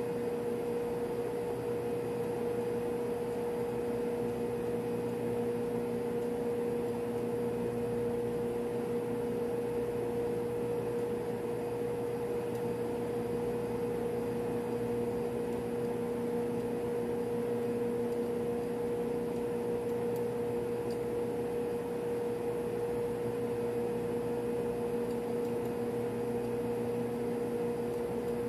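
Steady machinery hum of a refrigeration plant room: running equipment and ventilation drone evenly, with a constant mid-pitched tone over a hiss.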